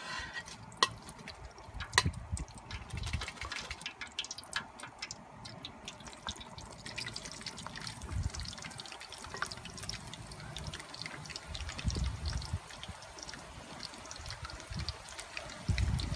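Once-fried potato fries dropped back into hot peanut oil in a deep fryer basket, sizzling and crackling steadily: the second fry that crisps and browns them.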